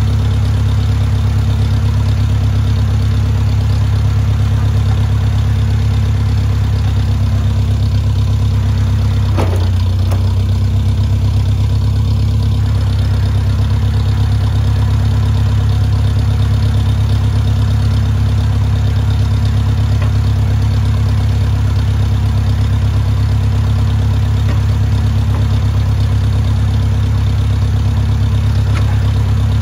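Tractor engine idling steadily at low revs, with one brief knock about ten seconds in.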